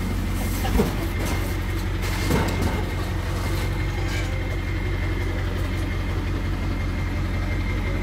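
Vehicle engine idling steadily, with a rough scraping noise for the first three seconds or so as a boxed HVAC unit is slid off a truck's lift gate onto asphalt.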